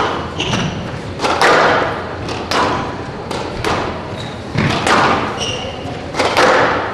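Squash rally in a glass-walled court: the ball cracking off the racquets and thudding against the front wall and floor, about one hit every half second to second, each followed by a short echo, with a few brief high squeaks of court shoes on the floor.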